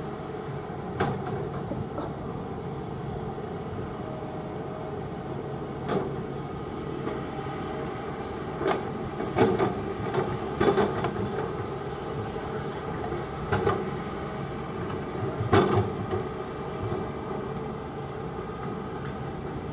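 Kobelco hydraulic excavator's diesel engine running steadily, with a series of sharp knocks and clanks from the working machine, loudest about ten and fifteen seconds in.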